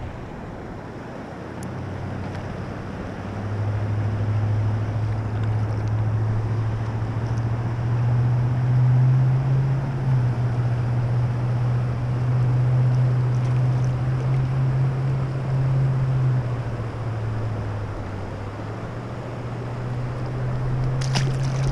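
Steady low rumble and rush of wind buffeting the microphone outdoors, with a brief sharp click near the end.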